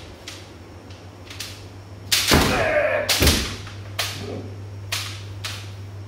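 Kendo sparring: sharp clacks of bamboo shinai striking, then about two seconds in a loud kiai shout with heavy stamping footfalls.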